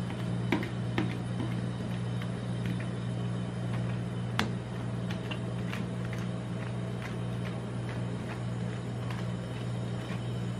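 Metal spatulas scraping and tapping on the steel cold plate of a rolled-ice-cream machine as strawberry ice cream is spread thin, a scatter of sharp clicks, the loudest about four and a half seconds in. A steady low hum runs underneath.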